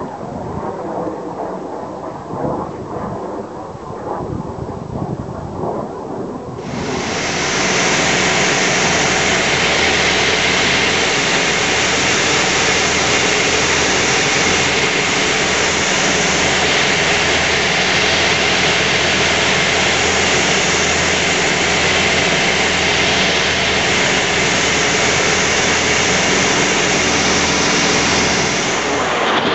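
A Jet Provost's Viper turbojet rumbling as it flies past at a distance. About seven seconds in, the sound cuts abruptly to loud, steady in-flight noise from inside a light aircraft: engine drone with a steady hum and rushing air.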